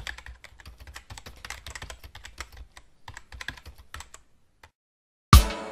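Fast typing on a laptop keyboard: a quick run of key clicks with a short pause about three seconds in, stopping after about four seconds. Just before the end, music starts with a loud hit.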